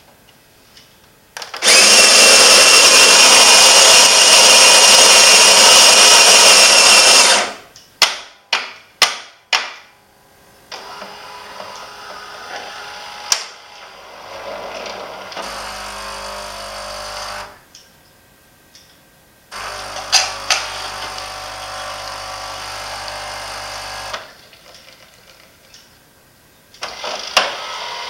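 Saeco Vienna Deluxe espresso machine going through its power-on cycle, with noises its owner calls weird and is unsure are normal. First a loud steady mechanical run of several seconds, then a quick series of about six knocks, then two stretches of a lower steady buzz with quieter whirring between.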